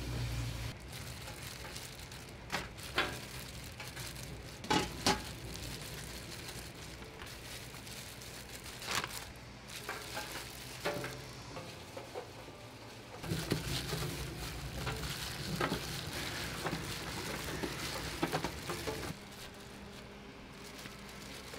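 Gimbap prep sounds: plastic-gloved hands mixing seasoned rice in a steel bowl over a steady hiss, with sharp clicks and knocks of utensils and steel containers, the loudest a few seconds in.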